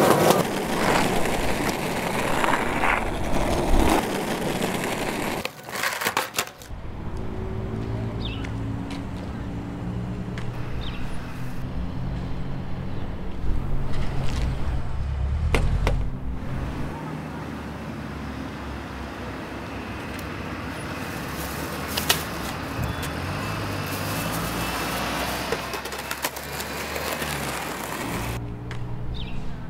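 Skateboard wheels rolling on a concrete sidewalk, with passing traffic. After a few seconds this gives way to a low hum with a few sharp clicks.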